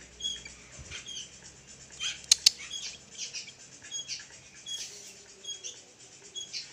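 Pet sooty-headed bulbul giving short, high chirps at intervals, with two sharp clicks close together about two seconds in.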